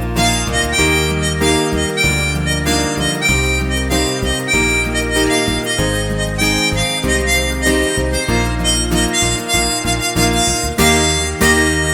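Harmonica playing a melody of sustained, changing notes over an accompaniment with a low bass line and steady rhythmic strokes.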